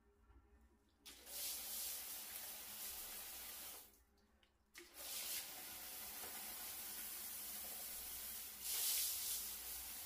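Handheld fan-type rainfall shower head spraying water onto tiles. The flow starts about a second in, stops for under a second around four seconds in, then runs steadily, briefly louder near the end.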